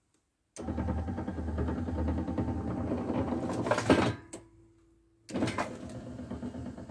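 Barbecue charcoal tray lift mechanism running as it raises the tray, with a steady mechanical hum and rattle that ends in a loud clunk about four seconds in. After about a second's pause it starts up again, moving the tray back down.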